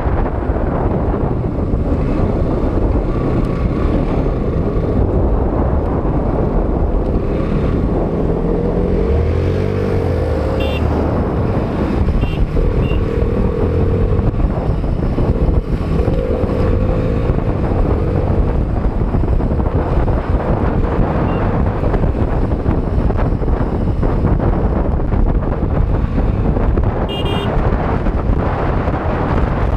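Motorcycle engine running while riding, under heavy wind rumble on the microphone; the engine note comes through more clearly for several seconds in the middle.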